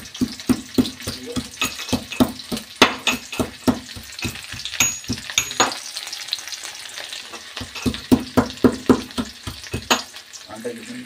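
Onions frying in oil in a metal kadhai, sizzling while a metal ladle stirs and scrapes against the pan with quick clinks, about four or five a second. The stirring pauses for about a second and a half past the middle, then starts again.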